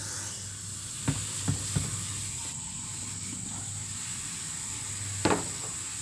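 Water from a garden hose running steadily into the plastic wash tub of a small portable twin-tub washing machine, a constant hiss, with a few light plastic knocks.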